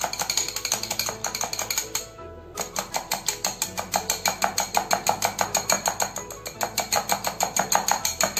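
Wire balloon whisk beating a thin milk-and-yogurt mixture in a glass bowl: rapid, even clicking of the wires against the glass, with a brief pause about two seconds in. The mixture is being whipped up to raise froth and bubbles on top.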